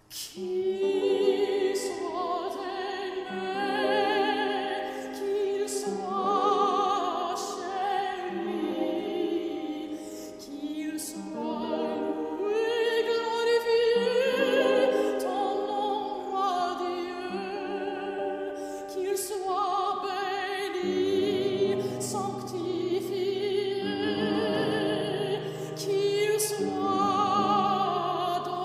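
A female operatic voice singing a slow, sustained melody with wide vibrato over held accompaniment chords.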